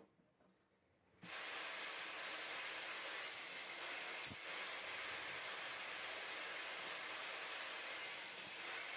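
A steady, even hiss that switches on abruptly about a second in.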